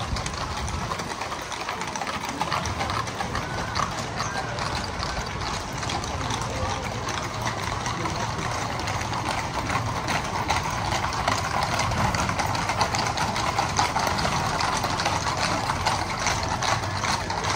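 Hooves of a column of mounted horses clip-clopping on asphalt at a walk, many overlapping hoofbeats, with crowd voices behind.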